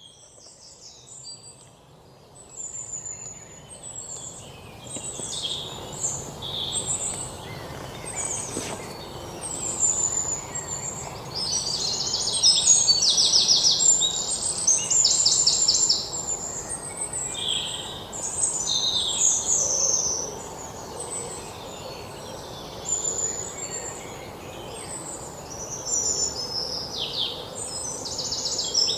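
Several birds singing and calling: many high chirps and gliding whistles, with bursts of rapid trills, over a steady outdoor background hiss. It is faint for the first couple of seconds, then fuller.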